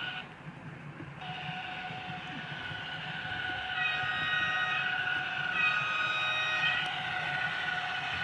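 Sound decoder in a model Glacier Express locomotive playing through its small speaker: a steady running hum with two horn blasts, each about a second long, about four and five and a half seconds in.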